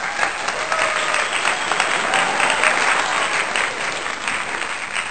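Recorded crowd applause: many hands clapping in a dense, steady patter that eases off slightly near the end.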